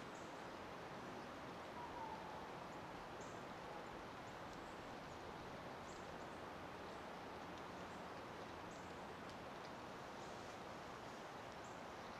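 Faint outdoor ambience: a steady low rush of background noise with scattered faint, brief high chirps, typical of distant small birds.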